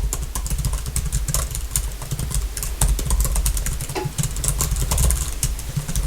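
Fast, irregular typing on a close-miked computer keyboard, the rapid key clicks over a steady deep low rumble.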